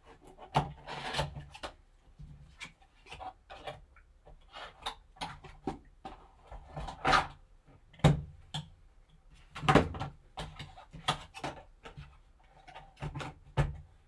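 Hands opening a sealed trading-card box and its packaging: irregular scraping and rubbing of cardboard and wrapping, with sharp taps and clicks.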